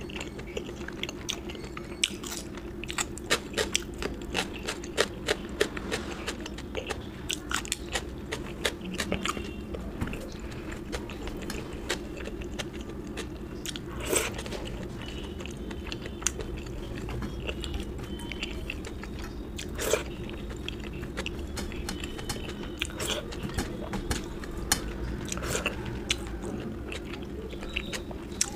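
Close-miked eating: a person chewing and crunching food with many small wet mouth clicks and crackles, dense at first and sparser later, with a few sharper crunches. A steady low hum runs underneath.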